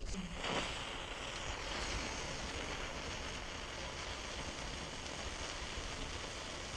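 A Blazing Batons indoor firework burning on a dish, giving a steady hiss that starts about half a second in.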